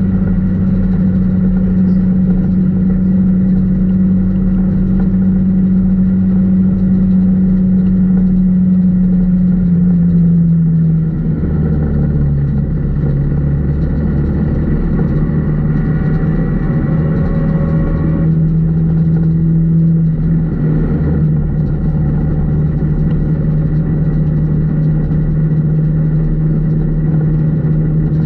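Four-cylinder dirt-track race car's engine, heard loud from inside the car as it races. The revs fall about ten seconds in, rise again, and fall once more near twenty seconds.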